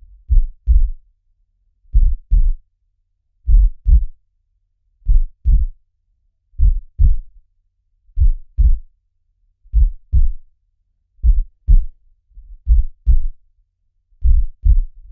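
Heartbeat recording: a slow, steady lub-dub, each beat a pair of low thumps, repeating about every second and a half.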